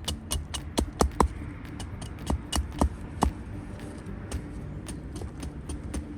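Campfire crackling, with irregular sharp pops and snaps that come thickly for the first half and more sparsely after.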